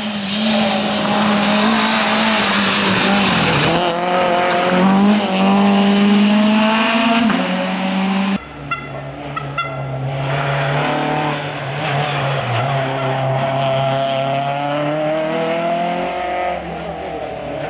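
Citroen C2 rally car's four-cylinder engine running hard at high revs, its pitch dipping and climbing again twice as the driver brakes and changes gear. The sound breaks off abruptly about eight seconds in and picks up again at a lower pitch.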